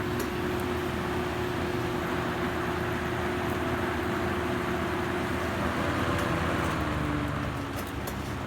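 Lakewood K223 box fan running on high, a steady rush of air with a constant motor hum. Near the end the hum drops in pitch and the air noise eases as the fan slows.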